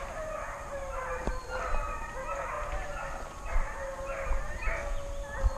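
Hunting dogs baying and yelping together, several overlapping drawn-out calls without a break: hounds giving tongue while running game on a wild boar hunt.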